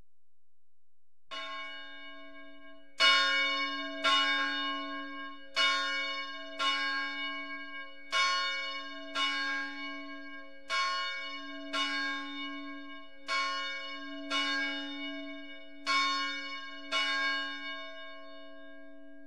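A church bell tolling: a faint first stroke, then about a dozen strokes a little over a second apart, each one ringing on into the next.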